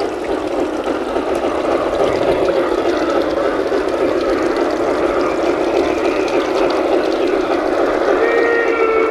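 Steady rushing running noise from a garden-scale model railway, with the model steam locomotive's chord whistle starting near the end.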